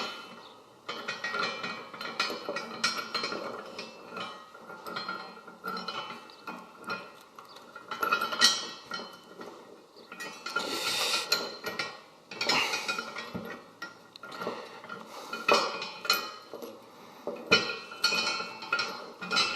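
Metal shackle, chain and mousing wire clinking and rattling irregularly as wire is threaded and twisted through the shackle pin to lock it.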